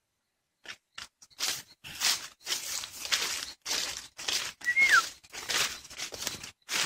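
Footsteps crunching through dry leaf litter and brushing through undergrowth, about two steps a second. About five seconds in, a single short whistled note falls in pitch.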